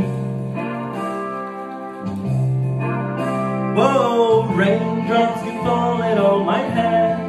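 Instrumental backing music with bass and held chords. About three and a half seconds in, a man's singing voice comes in over it, sliding between notes.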